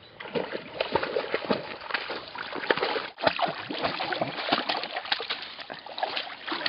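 Lake water splashing and sloshing around a swimming dog, an irregular run of splashes that cuts out briefly about three seconds in.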